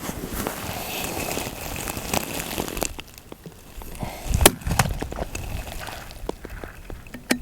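A single sharp rifle shot on a fullbore range about four and a half seconds in, the loudest sound, with a deep thump under it. Around it are rustling, wind-like noise and scattered small clicks, with another sharp click near the end.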